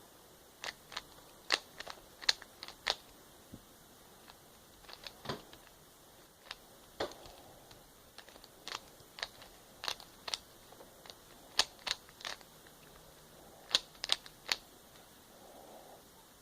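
Rubik's cube being turned by hand: irregular sharp clicks of the layers snapping round, with short pauses between moves, as edge pieces are put in.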